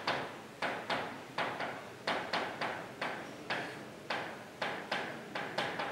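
A marker pen tapping and scraping on a whiteboard as words are handwritten: irregular sharp clicks, about two or three a second, each dying away quickly.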